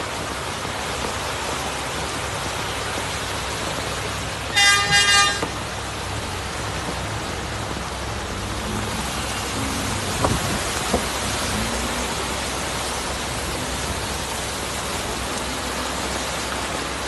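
Steady hiss of heavy rain. About four and a half seconds in, a vehicle horn toots in a few short, loud blasts.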